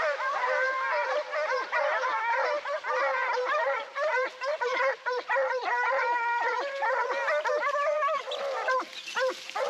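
A pack of Porcelaine hounds baying together, many voices overlapping almost without a break. This is the hounds giving tongue as they run the scent of a wild boar.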